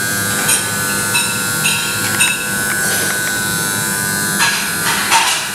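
Steady hum of commercial kitchen machinery, the extractor hood and combi oven fans, holding several fixed tones. A few short clinks come in the first couple of seconds, and brief hissing bursts come near the end.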